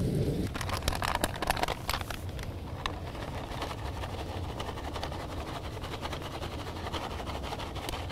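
A wooden spatula scrapes and taps in a cast-iron skillet of eggs and ground meat frying on a propane camp stove. Quick clicks and scrapes come in the first few seconds, then a steady frying hiss.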